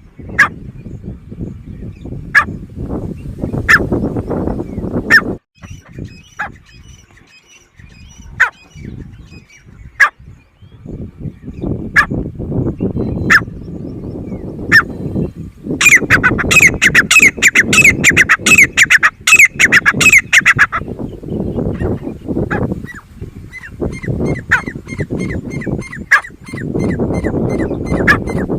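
Grey francolins calling: loud, sharp single notes about a second apart, then a dense, rapid run of calls for about five seconds in the middle, then a quicker series of about three notes a second near the end. A low rumble runs underneath.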